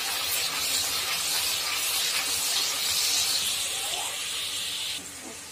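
Onion paste sizzling steadily as it fries in hot oil in a kadai, being cooked until its raw smell is gone. The sizzle cuts off suddenly about five seconds in.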